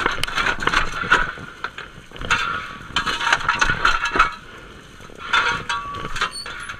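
Coal shovel scraping into coal on a steam locomotive's steel footplate and coal clinking off the blade as the fireman fires the engine, in repeated scoops every two to three seconds.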